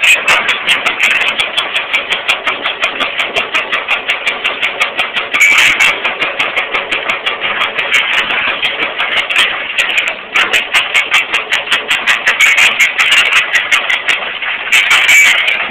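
Excavator-mounted hydraulic rock breakers hammering rock in rapid, steady blows, about four to five a second, over the excavators' diesel engines.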